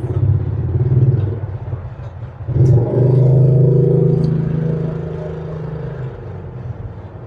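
A motor vehicle engine running close by with a steady low hum. It surges sharply about two and a half seconds in, holds for several seconds, then fades away.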